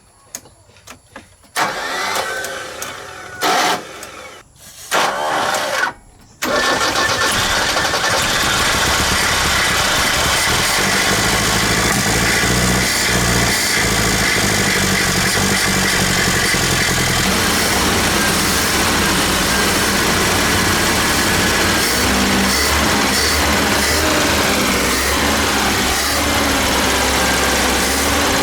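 Restored road roller's engine being cranked in a few short bursts, then catching about six seconds in and running steadily.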